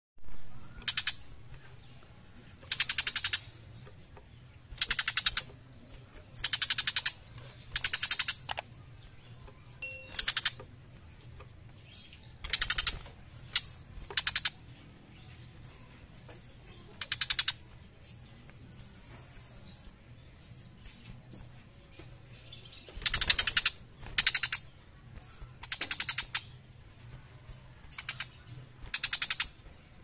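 Young tiger shrike calling in full voice: loud, harsh, rasping chatters, each a fraction of a second to nearly a second long, repeated every one to two seconds. There is one brief, higher trill about two-thirds of the way through.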